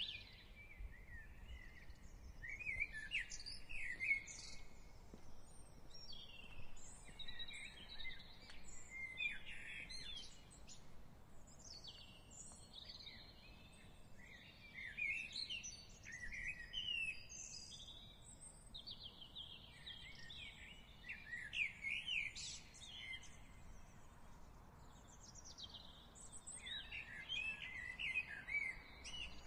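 Songbirds singing in short phrases of chirps and warbles every few seconds, over faint low background noise.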